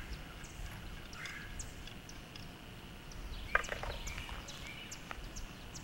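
Faint chirping of birds over outdoor background noise. About three and a half seconds in comes a brief, sharp clink of tools being handled at a small cannon, the loudest sound here.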